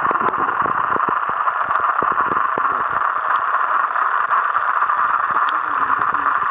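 Steady hiss of a camera microphone held underwater, with scattered faint clicks and low knocks.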